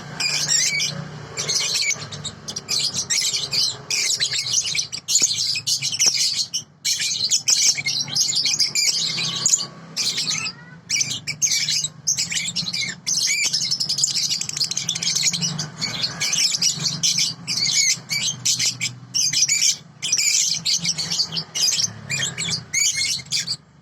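A juvenile songbird singing without pause, a fast chattering stream of high chirps and trills with only brief breaks. A low steady hum sits underneath.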